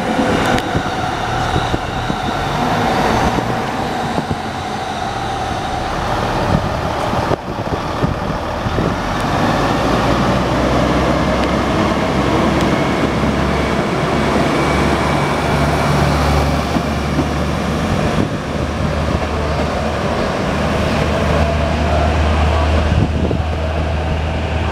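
KiYa E195 diesel rail-transport train departing: engine drone and wheels running over the rails and points as it pulls out and moves away. A steady low hum grows stronger in the second half.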